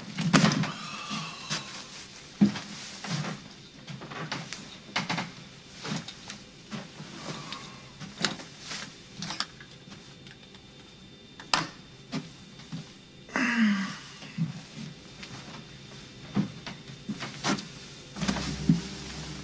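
Scattered knocks, clicks and rustles of a man handling a bag and moving about furniture, with one brief drawn-out sound that rises and then falls in pitch about two-thirds of the way through. A low hum comes back in near the end.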